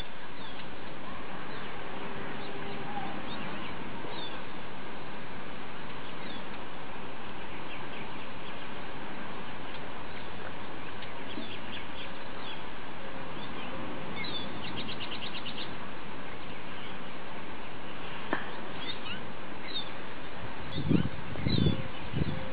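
Steady outdoor hiss with small birds chirping now and then: short high calls scattered throughout, and a quick trill about two-thirds of the way in. Near the end come a couple of brief low dull bumps.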